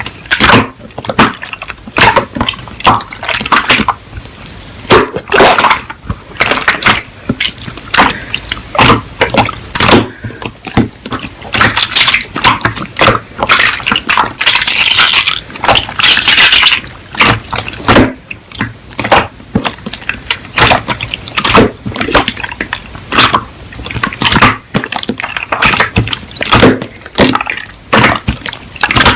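Hands squishing and pressing slime, giving a steady run of wet clicks, pops and crackles, with a longer hissy squelch midway.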